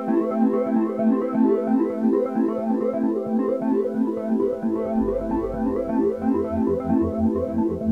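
Background music: a fast, repeating run of pitched notes, with a low bass part coming in about halfway through.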